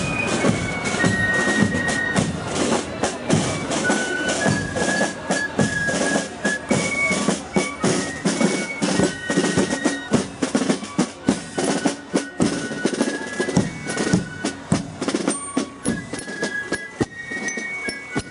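Spielmannszug, a German fife-and-drum marching band, playing as it marches: snare drums beat a rapid, dense rhythm under a high fife melody of held notes.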